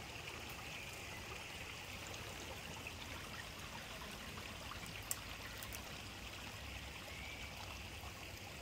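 Small waves of a calm sea lapping gently on a stony sand shore: a faint, steady wash of water.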